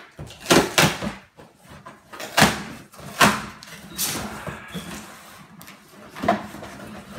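Cardboard shipping box opened by hand: packing tape torn off and the flaps pulled back, making a series of about six short, sharp rips and cardboard scrapes.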